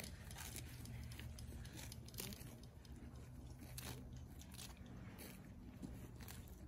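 A horse grazing: faint crunching as grass is torn and chewed, in irregular crisp snaps.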